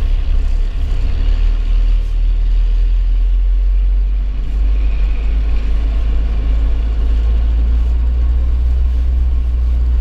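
UAZ Patriot driving over a snowy forest track, heard from inside the cabin as a steady low drone of engine and tyres.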